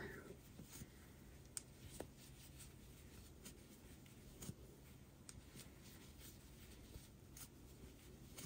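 Near silence: faint rustling of bulky yarn and a few light clicks as a crochet hook works double crochet stitches.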